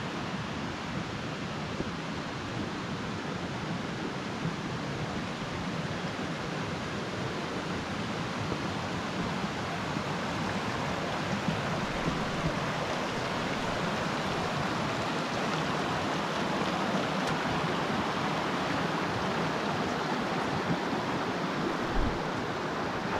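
Mountain creek rushing over rocks: a steady, even rush of water that swells a little in the middle.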